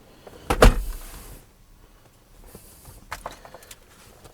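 A plastic interior door-handle trim piece on a BMW F80 M3 snapping into place with one loud sharp click, followed by a few lighter clicks of the part being handled.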